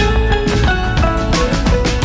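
Background music with a drum beat and held melody notes.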